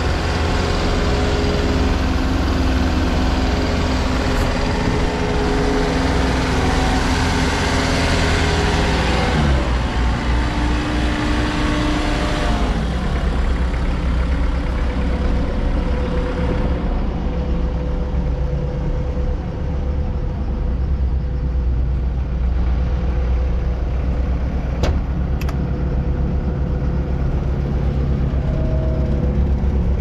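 Bobcat S185 skid steer's diesel engine running steadily, its pitch sliding down about a third of the way in. The high hiss fades about halfway through as it settles to a lower, quieter run. A couple of sharp clicks come near the end.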